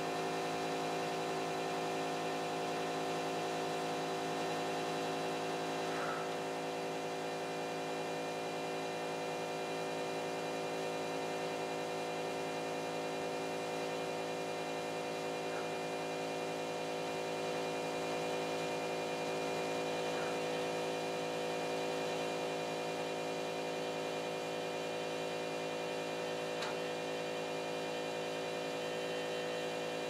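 Steady electrical hum of a CNC pen-drawing machine's motors while it draws, with a few faint ticks.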